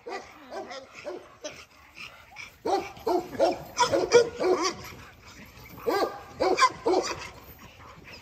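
Pit bulls giving short barks and whines, faint at first, then in two louder flurries about three seconds in and about six seconds in.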